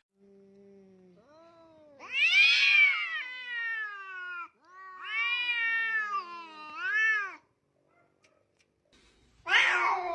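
A cat giving two long, drawn-out meows, each rising and falling in pitch, the second ending on an upward swoop.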